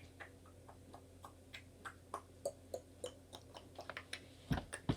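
Things being rummaged through and handled while searching for an item: faint, irregular small clicks and taps, with two heavier thumps near the end.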